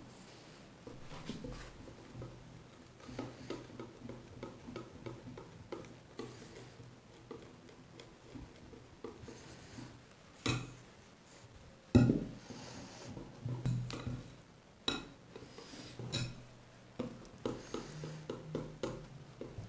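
Wire whisk stirring thick batter in a glass bowl, its metal tines clicking and scraping against the glass in quick irregular strokes. Two louder knocks come about ten and twelve seconds in.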